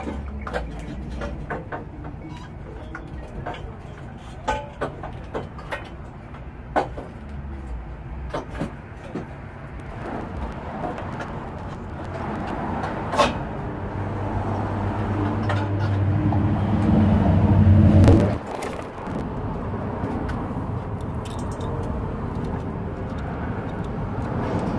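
Scattered small metal clicks and knocks of hand tools working in a car's engine bay. Then a road vehicle's engine hum grows steadily louder for several seconds and cuts off abruptly near the middle, leaving a lower, steady hum.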